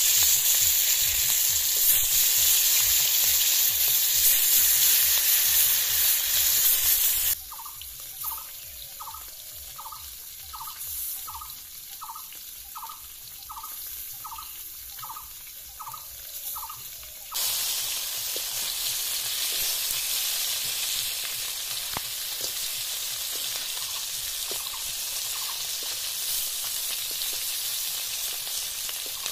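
Hot oil sizzling in an iron kadai as pieces of turmeric-coated snakehead (lyata) fish fry. About seven seconds in, the sizzling drops away for roughly ten seconds; in that gap a short high pip repeats about twice a second. The sizzle then comes back and holds steady.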